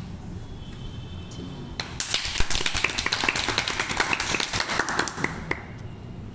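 A small group of people clapping: a burst of quick, irregular claps starting about two seconds in and lasting roughly three and a half seconds.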